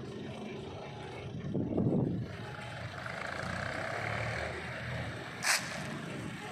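Vehicle or machinery engines running steadily. A louder low swell comes about two seconds in, and a single sharp knock comes near the end.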